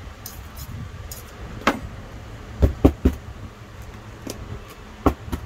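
Light knocks and clicks as metal tweezers, a plastic soil scoop and a small pot of succulents are handled and set down on a wooden work table: a few separate knocks, three close together around the middle and one near the end, over a steady low hum.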